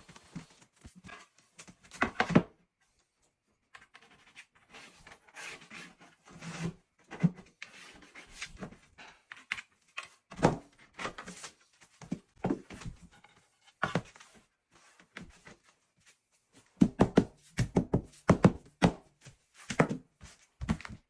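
Irregular knocks and thunks from laying luxury vinyl plank flooring, with a quick run of knocks about three-quarters of the way through.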